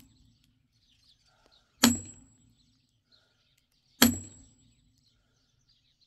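Sledgehammer blows on a steel wedge set in a log to split it: two sharp metallic strikes about two seconds apart, each with a brief ring. Birds chirp faintly between them.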